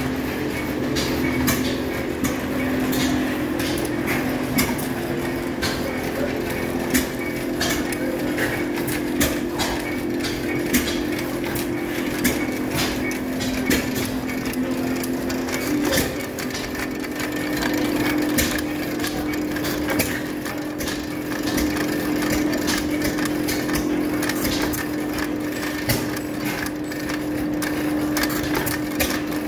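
Several antique hit-and-miss gas engines running at once: irregular sharp firing pops and mechanical clatter over a steady drone.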